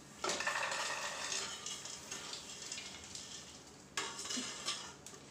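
Freshly popped popcorn rustling and sliding out of a metal pressure cooker into a bowl as a slotted spoon scrapes it along the pot. It comes in two spells: one starting just after the start and fading away, another starting abruptly about four seconds in.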